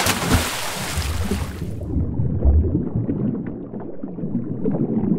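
Water rushing and gurgling over a low rumble, starting abruptly, with a loud hiss for the first couple of seconds that then drops away.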